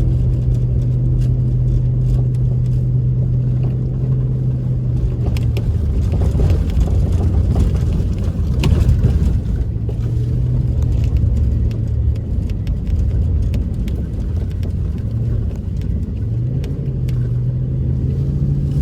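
Motor vehicle driving: a steady low engine drone over road noise. The drone eases off twice, around six seconds in and again near sixteen seconds, then comes back.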